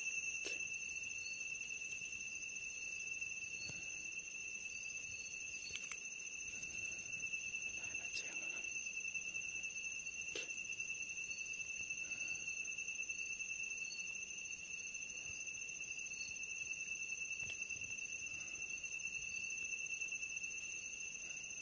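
Night insects trilling steadily in a continuous high-pitched drone, with a few faint clicks and rustles in the undergrowth.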